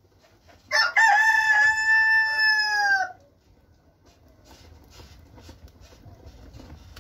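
A rooster crowing once: one long call of about two seconds that drops slightly in pitch as it ends.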